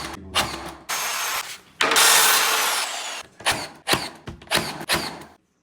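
Skirting-board installation work. A power tool runs briefly twice, the second and louder time for about a second and a half, followed by a quick series of knocks and clicks from handling and fixing the boards.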